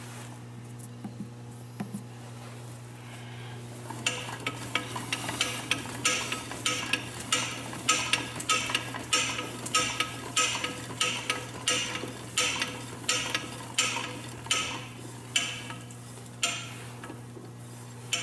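Carriage of a Monarch engine lathe cranked by hand along the bed with the taper attachment engaged, its handwheel and slides giving a rhythmic clicking rattle about two to three times a second that starts about four seconds in and slows toward the end. A steady low electrical hum runs underneath.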